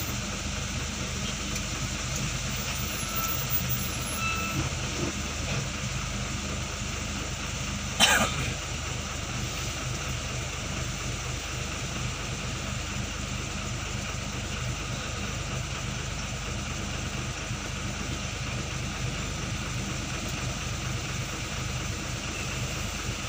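Engine of a large vehicle idling steadily while stopped in a traffic queue, heard from inside the cab. A brief sharp sound stands out about eight seconds in.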